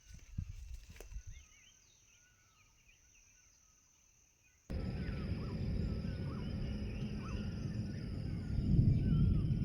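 Small birds chirping, faintly at first, then louder and more busily from about halfway in, when the recording abruptly switches to a section with low wind rumble on the microphone and a steady high whine behind the birds.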